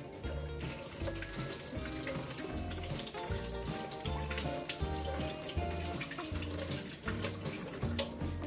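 Kitchen faucet running into a stainless steel sink as hands are washed under the stream, over background music with a steady beat.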